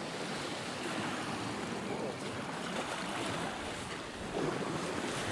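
Sea waves washing over shoreline rocks: a steady hiss of surf that swells briefly near the end.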